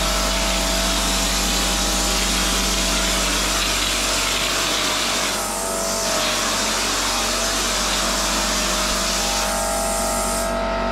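Drywall texture hopper gun spraying mud on compressed air from a small compressor: a steady hiss with a low steady hum under it. The hiss thins near the end as the spray stops.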